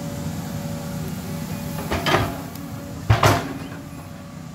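Caterpillar excavator's diesel engine running steadily while the bucket digs and curls up a load of landslide mud and debris, with two loud clunks about a second apart in the middle.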